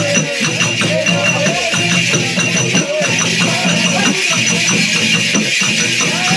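Nepali chudka folk dance music: a wavering melody line over a quick, steady percussive beat.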